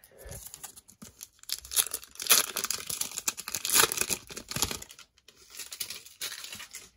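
Plastic wrapper of a trading-card bonus pack being torn open and crinkled. The crackling is loudest through the middle and turns softer and patchier near the end.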